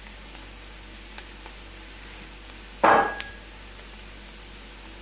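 Chopped onion and garlic sizzling gently in olive oil in a frying pan, a steady hiss. About three seconds in there is one loud knock with a short ring.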